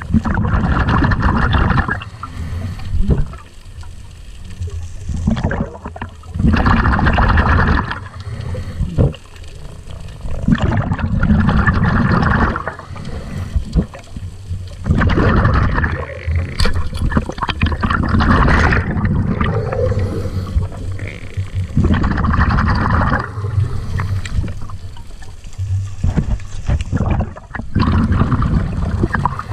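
Underwater water noise at the camera, coming in loud rushing, gurgling surges about every four seconds with quieter gaps between.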